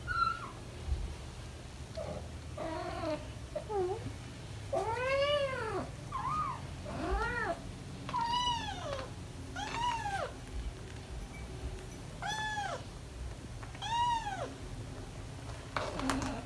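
British Shorthair cat meowing again and again: about ten separate meows, each rising then falling in pitch, roughly one every second and a half.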